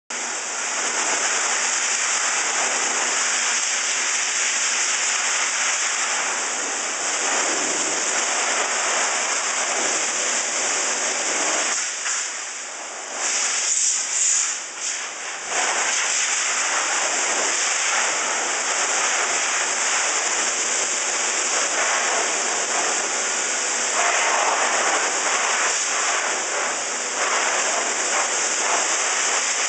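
Electric horse grooming vacuum-blower running steadily, air rushing through its hose and nozzle as it is drawn over a horse's coat. The air noise dips and wavers for a few seconds around the middle.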